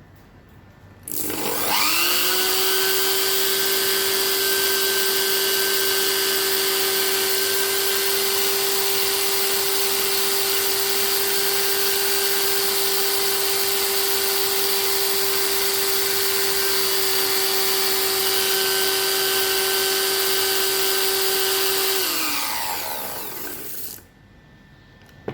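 A small electric motor starting up with a quick rising whine, running at a steady high speed for about twenty seconds, then winding down with a falling whine and stopping.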